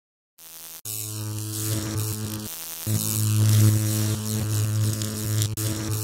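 Electrical buzz sound effect for a logo reveal: a loud, steady mains-like hum with crackling hiss that starts with a click just under a second in. It cuts out briefly near the middle, then resumes.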